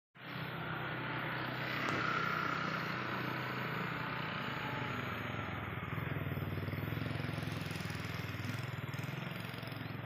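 A motor vehicle engine running steadily under a noisy hiss, swelling slightly about two seconds in and again past the middle.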